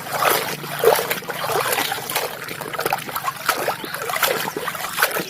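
Water trickling and splashing as a muddy toy is rinsed and scrubbed, with many small clicks and knocks throughout.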